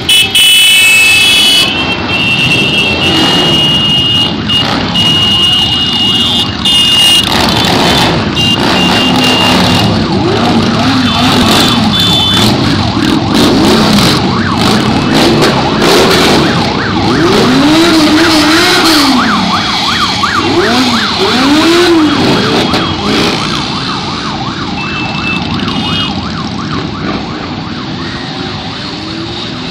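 A parade of many motorcycles and scooters riding past, engines running and revving up and down. Horns sound steady notes over the first several seconds.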